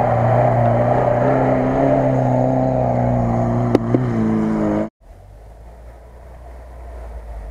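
A 4x4's engine running steadily under load as it climbs, with a couple of short clicks near the end of that stretch. About five seconds in the sound cuts off suddenly, leaving a much quieter low rumble.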